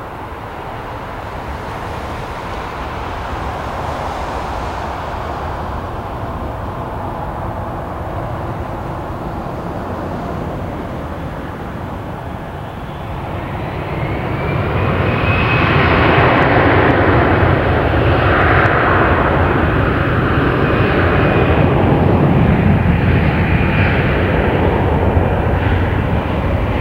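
Jet airliner's engines passing close, a rushing drone that grows louder about halfway through, with a high engine whine that rises slightly and then holds.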